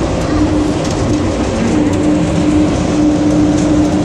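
Inside an airport people-mover train car as it runs: a steady rumble and hiss of the moving car, with a low steady hum that drops out and comes back.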